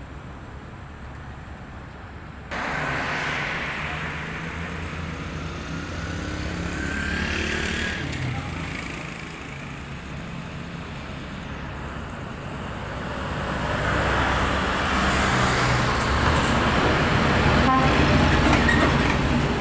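Heavy diesel trucks pulling lowbed trailers loaded with excavators drive past, a low engine drone with tyre and road noise. It steps up in loudness suddenly about two and a half seconds in and is loudest over the last few seconds as a tractor unit passes close.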